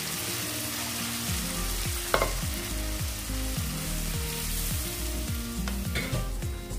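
Dal sizzling in a hot kadhai over the fried masala as it is stirred with a spatula, a steady frying hiss. The spatula knocks against the pan a few times, about two seconds in and near the end.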